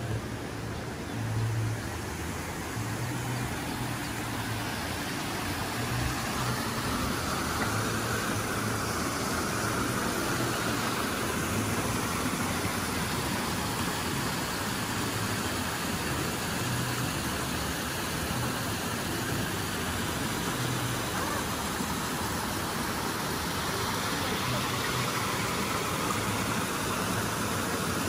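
Steady rush of a small waterfall spilling over rocks into a koi pond, growing a little louder after the first few seconds.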